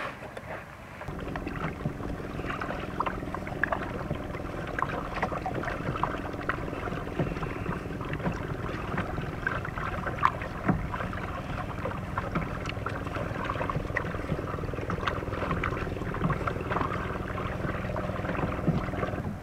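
Kayak being paddled: paddle blades dip and splash, water runs along the plastic hull of an Ocean Kayak sit-on-top, and there are many small knocks and drips, over a steady low hum. The paddling noise picks up about a second in.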